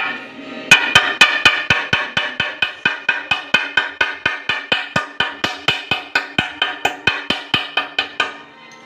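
Rapid, even light tapping on a ceramic tile, about four ringing taps a second, chipping along a marked circle to knock out a hole for a pipe. The taps start about a second in and stop shortly before the end.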